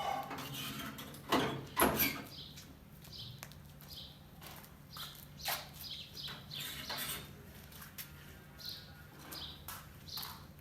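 Birds chirping with short repeated calls, with two loud knocks of handling between about one and two seconds in, over a faint steady hum.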